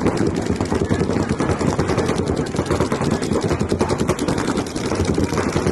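Paintball markers firing rapidly and continuously, overlapping strings of shots making a dense, unbroken rattle.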